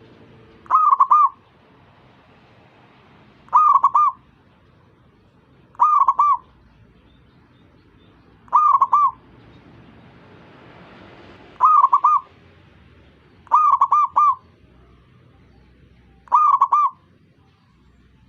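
Zebra dove (perkutut) cooing: seven short phrases of about three quick coos each, repeated every two to three seconds.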